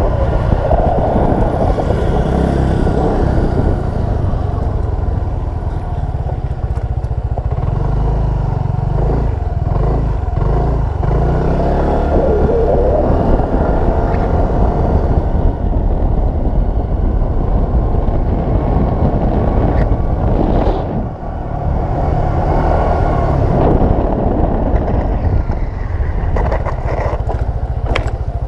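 Yamaha NMAX scooter under way, its engine running under a heavy, steady rumble of wind on the scooter-mounted camera's microphone. The noise drops briefly about 21 seconds in.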